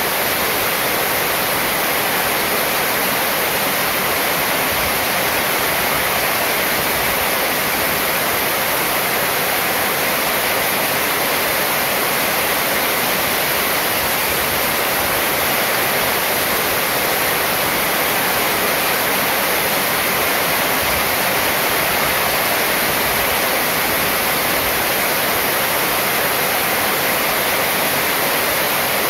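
Heavy rain falling steadily on a corrugated metal roof, a dense, even hiss that never lets up.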